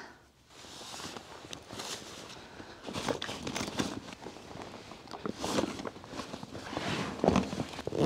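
Camping gear being handled and packed: fabric bags and straps rustling, with irregular small knocks and shuffling footsteps on a hard floor.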